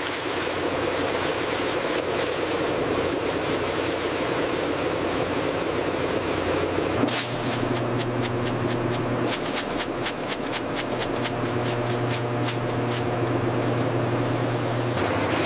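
Snack-factory conveyor line running with a steady rushing noise of chips moving along it. About seven seconds in, a low machine hum joins, with a run of quick clicks and ticks for several seconds.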